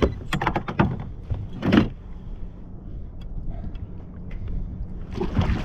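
Knocks and clatter on a fishing kayak as a big corvina is brought aboard: a quick cluster of sharp knocks in the first two seconds and a noisier burst near the end, over steady wind and water noise.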